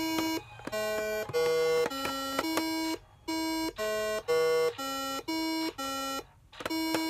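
Simon electronic memory game sounding its button tones: a run of short, clear beeps at several different pitches, one after another, with a few brief pauses between runs.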